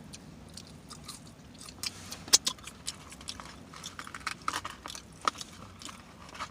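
Close-up mouth sounds of someone eating: chewing with lip-smacking, a run of quick wet clicks, one louder smack a little past two seconds in.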